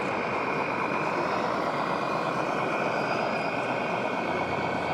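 1/14-scale RC trucks running, their sound modules playing a diesel truck engine, over a steady, dense din.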